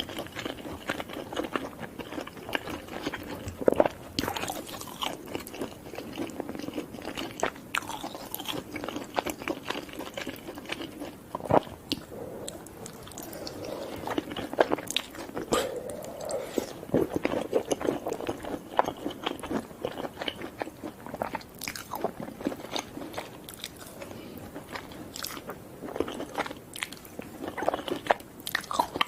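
A person eating close to the microphone: continual chewing with many sharp crunches and crackles from bites of fried fast food.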